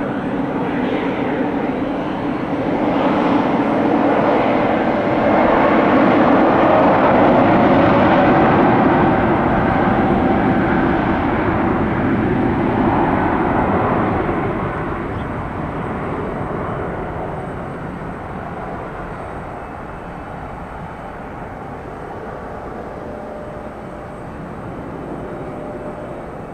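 Airbus A320neo's twin jet engines at takeoff power as it departs, a dense roar with a steady whine. It swells to its loudest about seven seconds in, then fades away over the last ten seconds as the plane climbs out.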